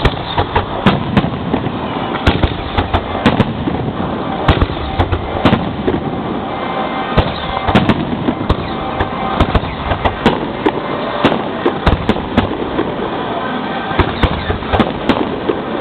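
Fireworks display heard from right beside the launch site: shells bursting overhead in a rapid, unbroken barrage of sharp bangs, several a second, over a constant din.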